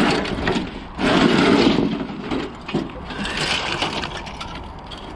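Scraping and rustling of scrap being pulled out and shifted by hand in a junk pile, in irregular noisy swells, the loudest about a second in.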